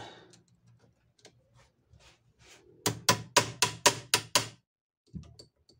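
Small hammer striking the metal head of a 70-year-old Adler cobbler's sewing machine: seven sharp taps in quick succession, about four a second, starting near the middle, with a softer knock a moment later. The taps are driving a tapered pivot pin further in to take up play in the head.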